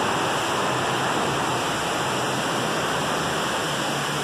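Waterfall pouring from a sea cave's roof into the sea: a steady rush of falling, splashing water.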